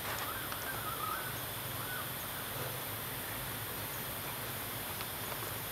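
Faint high, wavering animal calls over the first second or so and once more about two seconds in, over a steady outdoor hiss.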